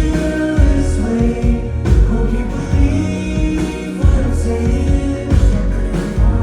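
Live pop song with a sung vocal line over band backing and a heavy bass, played loud through a venue's sound system.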